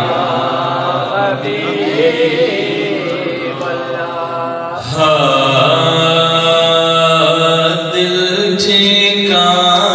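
Male voices chanting a devotional recitation, a melodic line over a steady low held drone, growing louder about five seconds in.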